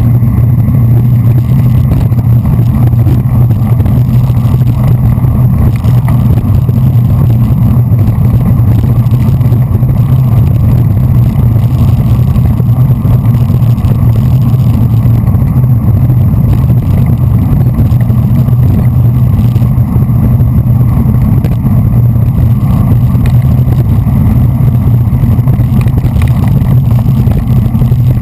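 Loud, steady wind rumble on a GoPro's microphone, with road noise, while riding a racing bicycle at speed in a bunch.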